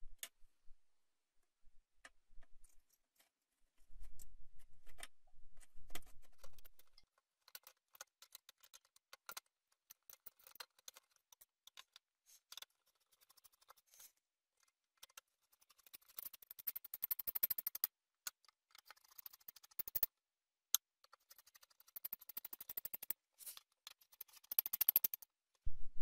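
Screwdriver driving the spring-loaded heatsink screws on an HP Compaq dc7800 Ultra Slim Desktop's CPU cooler: faint scattered metallic clicks and scrapes. There is a short low hum about four seconds in, and denser runs of clicking and scraping about two-thirds of the way through and again near the end.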